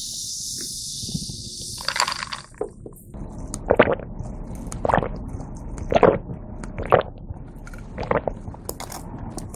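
Carbonated water with calamansi fizzing in a glass, close to the microphone, for about the first two seconds. Then the drink is gulped down in about six swallows, roughly one a second.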